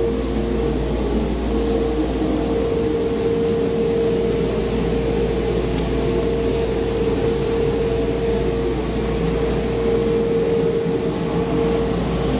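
Used 2017 Paccar MX13 inline-six diesel engine running at a steady speed on a test run, with a steady whine over the engine noise. It runs evenly, without misses or surges, in keeping with the seller's claim that it runs excellent.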